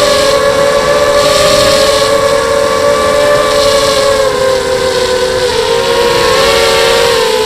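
FPV racing quadcopter's electric motors and propellers whining steadily, several close tones from the separate motors, shifting slightly in pitch as the throttle changes about halfway through.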